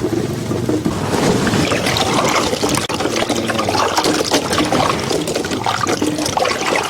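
Water sloshing and trickling as mushrooms are washed by hand in a vessel of water, with many small splashes.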